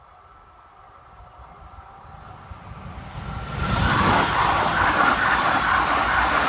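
Stockholm commuter train, an SL X60 electric multiple unit, approaching and passing close by. Its rolling noise grows over the first few seconds, then turns loud and steady from about four seconds in as the cars go past.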